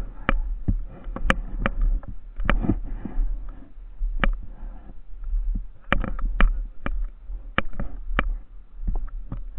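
Wind rumbling on the camera microphone, with irregular sharp clicks and crunches through it, two or three a second.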